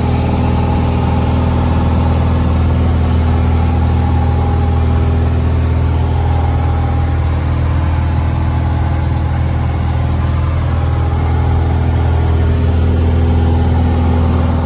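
Single-engine light aircraft's engine and propeller, heard inside the cabin: a steady, loud drone in cruise flight.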